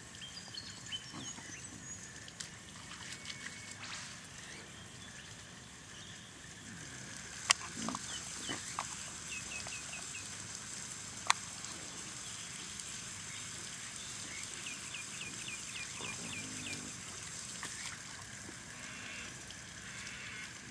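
Outdoor ambience of birds calling, with two quick runs of short falling chirps over a steady hiss. Two sharp clicks stand out, about a third and halfway through.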